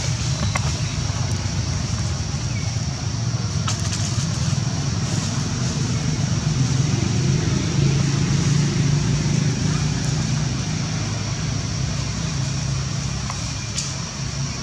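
Steady low rumble and hum with an even high-pitched hiss over it and a few faint clicks.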